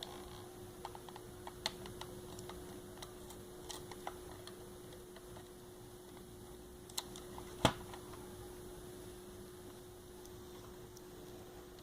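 Scattered light clicks and taps of a small screwdriver and plastic parts as a computer mouse is taken apart and its hidden screws removed, with a sharper click about three-quarters of the way through, over a steady low hum.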